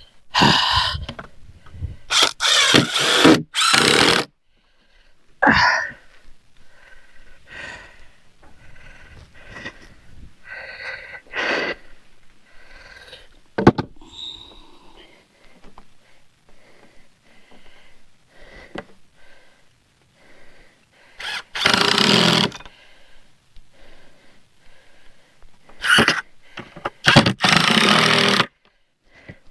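Power drill driving exterior screws into pressure-treated pine decking boards, in several bursts of a second or two each, with quieter knocks and handling between them.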